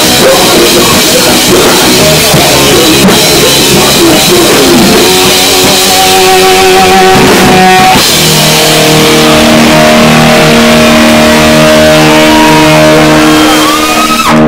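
Live metal band playing loud: distorted guitars, bass and drums. About halfway through, the playing gives way to long held, ringing guitar notes, and the sound cuts off suddenly at the end.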